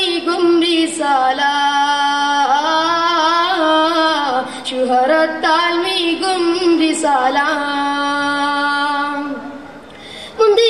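A boy's high, unbroken voice singing a Mappila song solo, in long held notes with wavering melismatic turns and no instruments heard. He breaks for a short breath near the end, then sings on.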